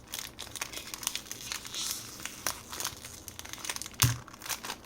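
Packaging around a new puzzle cube crinkling and rustling as it is pulled open by hand, with a quick run of small crackles and a single dull knock about four seconds in.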